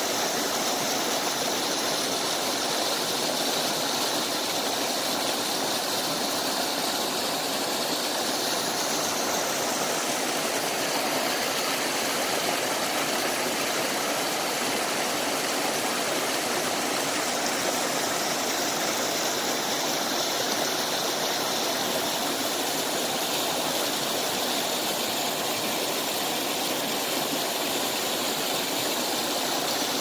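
A small rocky mountain stream rushing down a series of little cascades: a steady, unbroken rush of white water.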